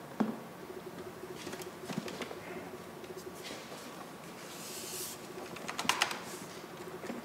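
Knocks, clicks and rattles of a metal computer case being handled and tipped over on a workbench, with a short hiss about five seconds in and a cluster of clicks about six seconds in, over a faint steady hum.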